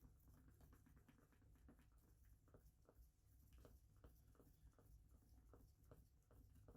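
Near silence: faint room tone with a low hum and light, irregular ticks, a few a second.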